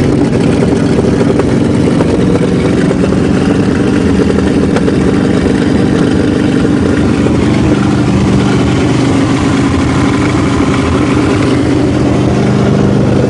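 Chrysler New Yorker's carbureted engine running at a steady fast idle just after a cold start.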